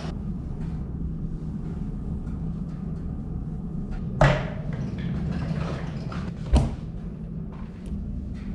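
Steady low hum of coin-laundry machines, with two sharp thuds about four and six and a half seconds in.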